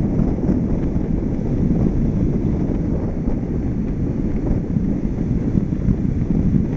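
Steady low rumble of wind buffeting the microphone of a camera mounted on the outside of a moving car, mixed with the car's road noise.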